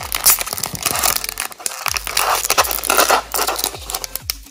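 Foil wrapper of a Pokémon card booster pack crinkling and crackling as it is handled and opened, in a dense run of irregular crackles with a short lull about halfway through.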